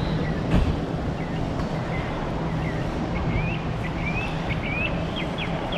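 Birds chirping outdoors: a run of short rising calls starting about a second and a half in, over a steady low hum.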